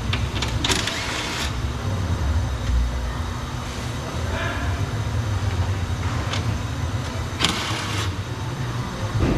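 A steady low engine rumble, like a vehicle running, with two short hissing noises, one about a second in and one near the end.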